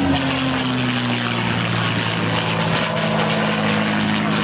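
North American P-51D Mustang's Packard Merlin V-12 engine droning steadily in flight, its pitch falling slightly in the first second or so as the aircraft passes.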